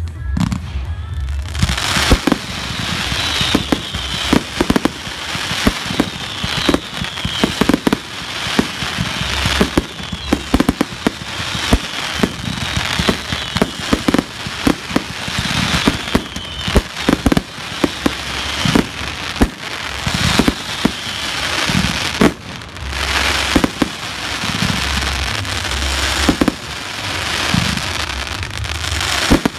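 Professional aerial fireworks display of cakes and 3-inch shells firing and bursting: a dense run of sharp bangs, several a second, over continuous crackling, thickening about a second and a half in.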